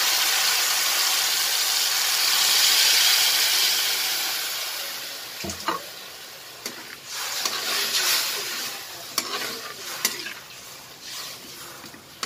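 Water sizzling and hissing in a hot wok of sautéed tomatoes and onions, the hiss swelling and then dying away over about five seconds. After that a metal spoon stirs and scrapes around the wok, with a few sharp clicks against the pan.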